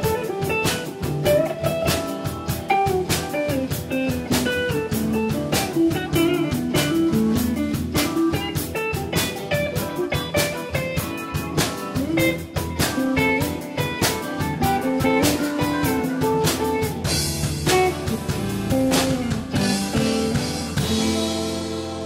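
Live blues-jazz band: an electric guitar plays a melodic solo over a drum kit, with cymbals swelling in the last few seconds.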